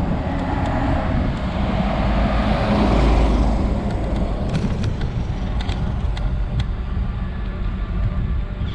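Riding noise of a scooter: steady wind rush over the microphone and tyre rumble on rough, cracked asphalt. The noise swells to its loudest about three seconds in, with a few light clicks and rattles after that.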